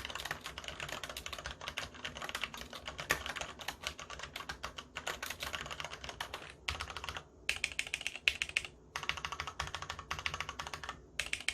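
Cherry MX Board 3.0S plateless mechanical keyboard with Cherry MX Red linear switches being typed on quickly: a dense stream of key clacks, with brief pauses about seven and eleven seconds in.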